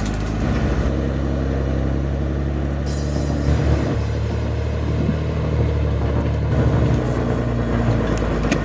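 A heavy machine's engine running with a steady low drone, changing character abruptly a few times.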